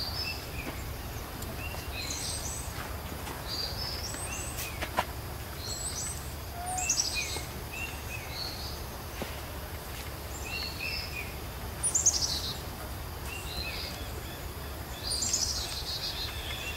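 Wild birds chirping: short high chirps repeated throughout, with a louder falling trill three times, over a steady low hum.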